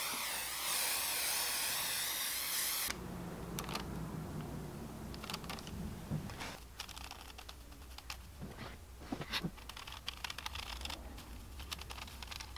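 A steady hiss for about the first three seconds that cuts off suddenly, then light clicks and paper rustles as a sheet of gold leaf on its backing paper is handled.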